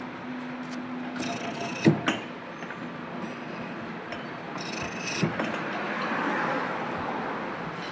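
Metal lathe machining a pulley: a steady running noise with scraping from the cutting tool, and a sharp knock about two seconds in.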